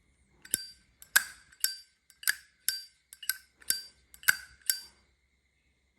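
Zippo Canada brass-cased lighter's lid flicked open and snapped shut over and over: nine sharp metallic clinks with a ringing tone, about two a second, ending about five seconds in.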